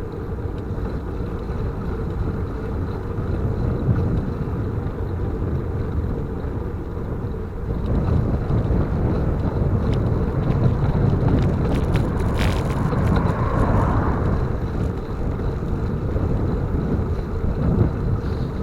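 Wind rumbling over the microphone of a moving bicycle, with road noise underneath; it grows louder about eight seconds in.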